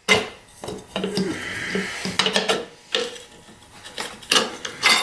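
Metal tools and parts clinking and clattering together in a series of sharp knocks, the loudest right at the start and again near the end.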